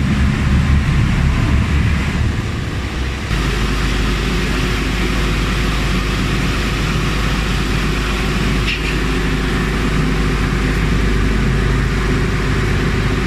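A ferry boat's engine running steadily with a low drone. About three seconds in the sound changes abruptly to a smoother, even hum.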